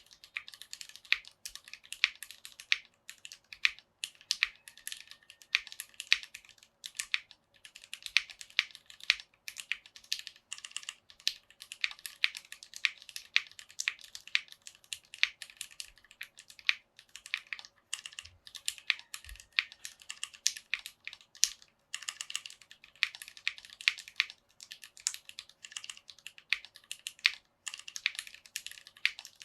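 Steady typing on a Tofu60 acrylic-case mechanical keyboard with Cherry MX Black linear switches and PBT keycaps, mounted on O-rings in a faux gasket mount. It is a quick, uneven run of keystroke clacks with brief pauses between bursts.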